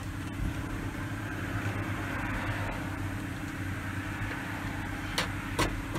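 Steady low mechanical hum under a faint hiss, with two light clicks near the end.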